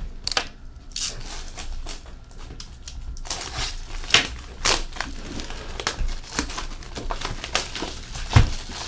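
Clear plastic shrink wrap being torn off a hockey card box and crumpled, crackling densely from about three seconds in, with handling clicks before and a solid knock near the end.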